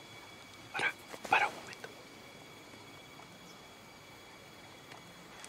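A dog barking twice in quick succession, about a second in.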